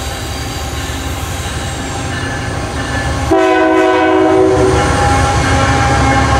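GE ET44AH diesel locomotive at the head of a loaded coal train approaching and passing, its engine a steady low rumble that grows louder as it nears. About three seconds in its horn sounds one blast of a little over a second, the loudest thing here.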